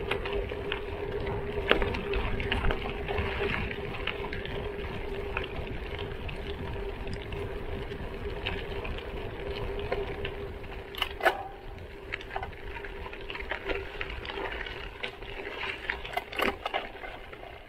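Gravel bike rolling over a gravel road: the tyres crunch and rattle over loose stones with a steady hum underneath, and a few sharper knocks stand out about two-thirds of the way in and near the end.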